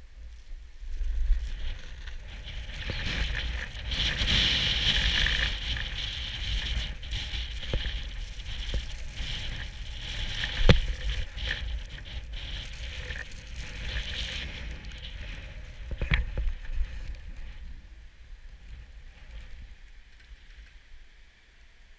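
Snowboard sliding and scraping over snow, a rough hissing scrape with wind buffeting the microphone. There is a sharp knock about eleven seconds in and another around sixteen seconds. The scraping dies down in the last few seconds.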